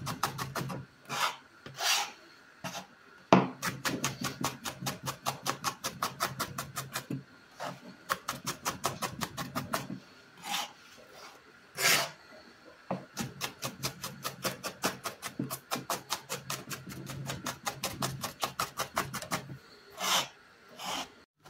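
Kitchen knife rapidly chopping white onion on a plastic cutting board: quick, even knocks several a second in runs, with short pauses and a few louder single strokes as the diced pieces are gathered.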